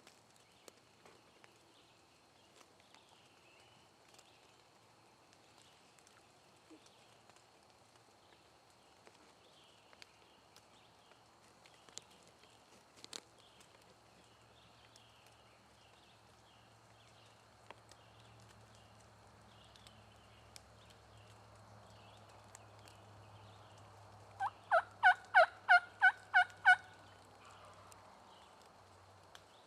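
Wild turkey gobbler gobbling once, about three quarters of the way in: a fast rattling run of about eight notes over two seconds. Faint songbird chirps go on throughout.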